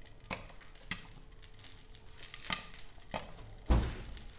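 Sparse sharp pops and crackling from popcorn kernels popping in a pan of melted butter and candy, with one heavy thump near the end.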